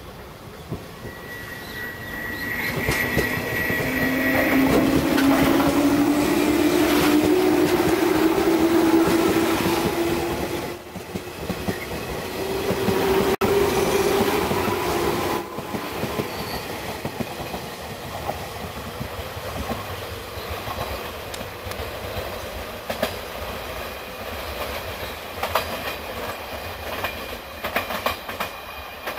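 A 113 series electric multiple unit pulling away, its traction motors whining and rising in pitch as it gathers speed. Its wheels click and clatter over the rail joints, the sound fading as the train draws off. A steady high tone sounds briefly near the start.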